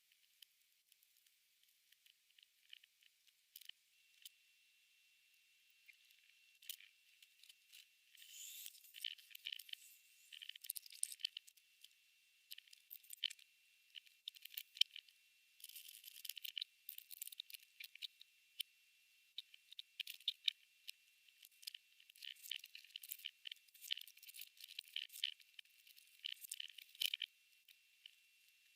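Faint, irregular crisp clicking and crackling, busier from about eight seconds in: a praying mantis chewing through a locust.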